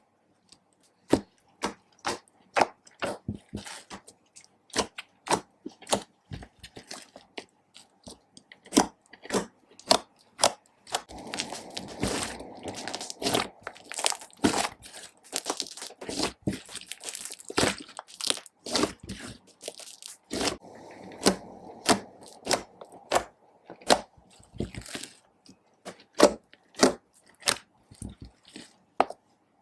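Slime made from coloured glue being mixed and worked, giving many irregular sticky pops and clicks, a few a second, with denser squishing stretches in the middle.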